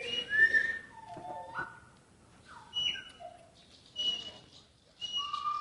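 A series of clear whistled notes and short pitch glides, about one a second, ending in a longer held note.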